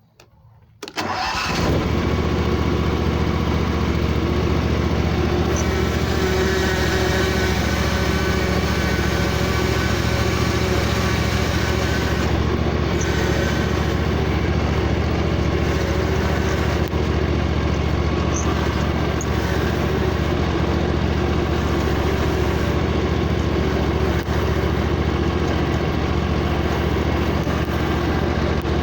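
Riding lawnmower engine starting about a second in, then running steadily.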